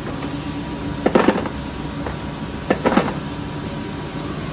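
Steady hum of running machine-tool equipment, with two short bursts of knocking: one about a second in and one near three seconds in.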